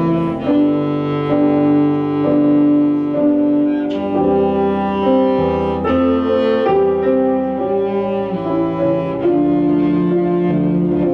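Slow instrumental music: a melody of held notes over chords, the notes changing about every half second to a second.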